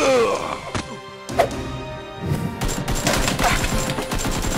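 Background music with added fight sound effects: a falling whoosh at the start, a sharp hit about a second and a half in, and a rapid clatter of hits in the second half.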